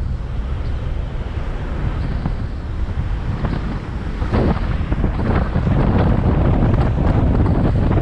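Car climbing a steep mountain road: a heavy low rumble of engine and road noise with wind buffeting the microphone and a few knocks, growing louder about halfway through.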